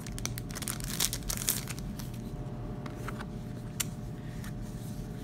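Clear plastic cellophane wrapper crinkling and tearing as it is pulled off a sticky note pad by hand. The crackles are thickest in the first second and a half, then come sparser.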